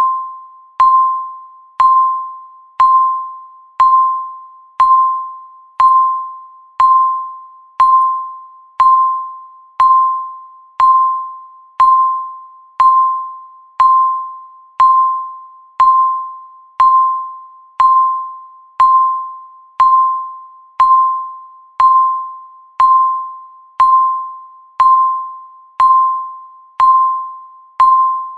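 Countdown timer's tick sound: a short ringing beep with a sharp click at its start, repeating once a second, each one fading away before the next.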